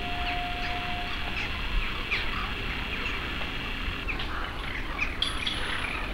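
A large flock of crows calling overhead: many short, overlapping caws. A steady tone sounds under them for about the first second.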